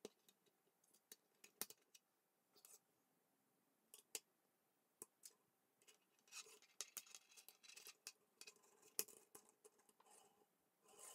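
Quiet, scattered sharp clicks of plastic K'NEX rods and connectors being snapped together by hand, with a stretch of rattling and scraping of the pieces on the tabletop about six seconds in and again near the end.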